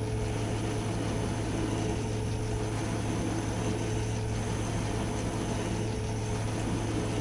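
Metal lathe running at a steady speed, its motor giving an even low hum with a faint steady whine, while a drill bores into the spinning soft-metal workpiece.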